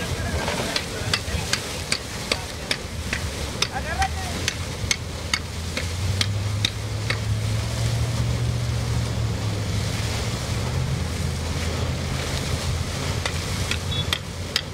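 Water gushing and churning up from a fire hydrant sheared off by a car, a steady rushing noise, with frequent sharp taps of the firefighters' metal bars striking the pavement as they probe for the shut-off. A low steady hum joins in from about six seconds in.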